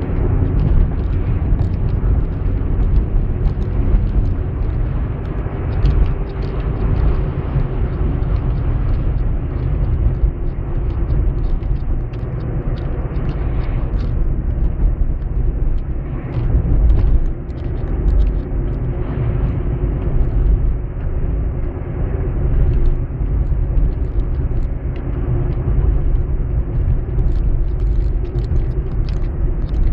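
Car driving on the open road, heard from inside the cabin: a steady, loud low rumble of engine and tyres on the asphalt, with a faint engine hum over it.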